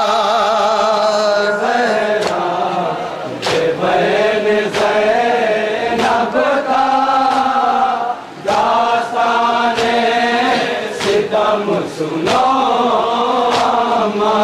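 Group of men chanting a noha, a Shia mourning lament, in unison through a loudspeaker system. It is punctuated by sharp, rhythmic slaps of matam chest-beating, a little more than a second apart.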